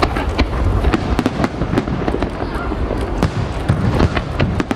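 Aerial fireworks going off in quick succession: many sharp cracks and bangs over a steady low rumble.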